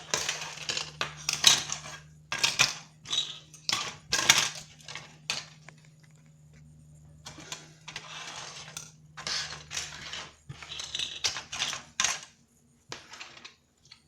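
Broken plastic pager pieces clattering and rattling as they are handled, in irregular bunches of clicks with a quieter stretch about halfway through.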